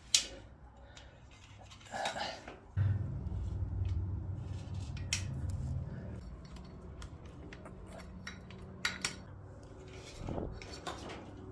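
Scattered light clicks and rattling of a bicycle cable and its housing being handled and worked into place.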